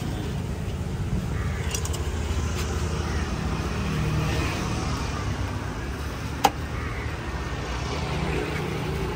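A motor vehicle engine running steadily, a low rumble, with one sharp knock about two-thirds of the way through.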